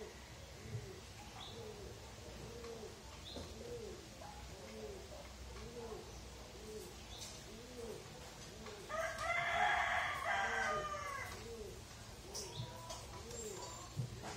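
A rooster crows once, loudly, for about two and a half seconds starting about nine seconds in, over a dove's steady cooing, a soft rising-and-falling coo repeated about one and a half times a second.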